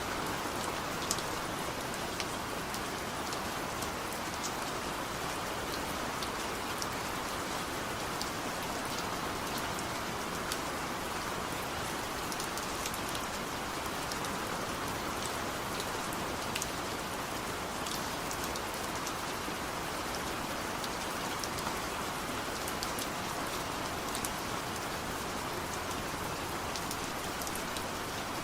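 Steady rain falling in an open field: an even hiss with many sharp drop ticks scattered through it.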